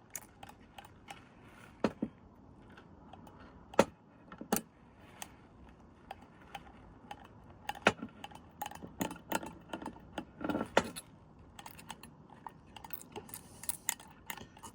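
Irregular small metallic clicks and taps from a Teletype Model 35 typing unit's levers and linkages being handled and oiled, with a few sharper clicks about 2, 4 and 8 seconds in and a busier run of clicks near 9 to 11 seconds.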